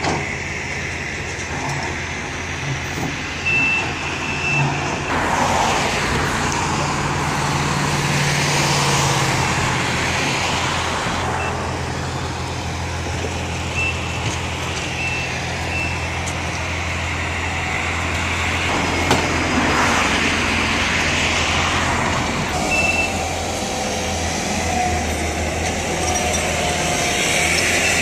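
Heavy construction machinery and trucks running with a steady low engine drone, with a backup alarm beeping in short groups from time to time. Broad rushing noise swells up twice, early and again about two-thirds of the way through.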